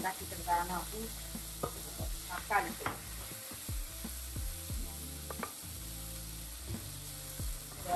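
A wooden spoon stirring and scraping a sauce frying in oil in a nonstick pan. The sauce sizzles steadily, with scattered knocks and brief squeaks of the spoon against the pan.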